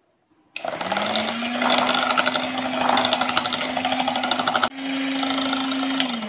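Electric hand mixer running, its motor humming on one steady pitch as the beaters whip runny batter in a glass bowl; it starts about half a second in. Near the end there is a click and the motor's pitch starts to drop as it is switched off.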